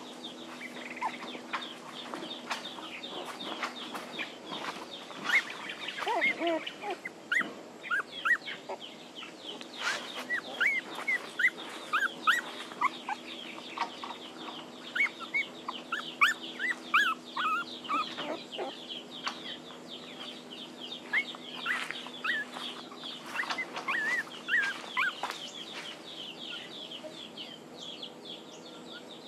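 A litter of young puppies whimpering and squealing in many short, high calls scattered throughout, over a steady low hum.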